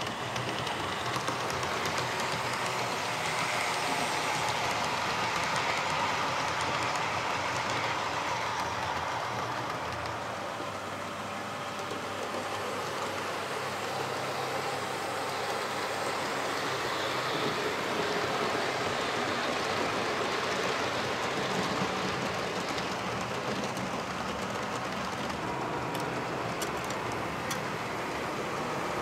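Model 141/181-class diesel locomotives running along a model railway's track: a steady whir of the motors and wheels on the rails, easing slightly partway through.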